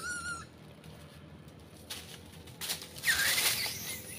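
Macaques calling: a short high-pitched call at the start, then a louder, harsh, noisy screech about three seconds in.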